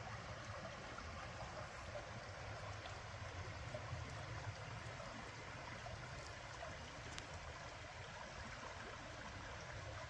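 Shallow creek running over flat stones and rocks: a steady, even rush of water.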